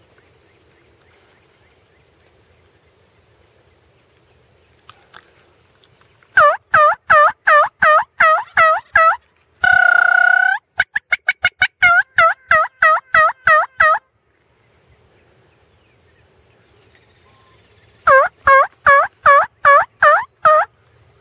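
Turkey call yelping: three runs of short, loud notes at about three a second, with one long held note between the first two runs, calling to wild turkey gobblers.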